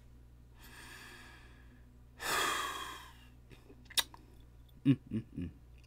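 A man breathes in, then lets out a long audible sigh about two seconds in. A single click and a few short low vocal sounds follow near the end.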